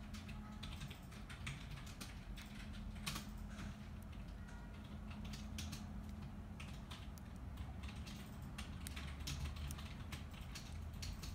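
Fingers handling a strip of self-fusing rubber tape and its plastic release liner: irregular small clicks and crinkles, over a steady low hum.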